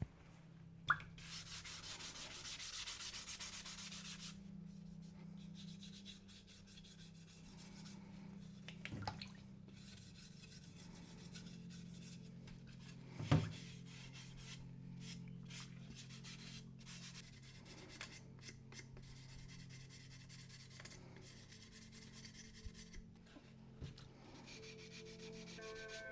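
Hand-sanding of primer-coated 3D-printed plastic parts with fine abrasives (a superfine sanding sponge and a 600-grit sanding stick): a dry rasping rub in repeated strokes as the high-build primer is smoothed ready for paint. A few sharp knocks come through, the loudest about 13 seconds in, over a faint steady low hum.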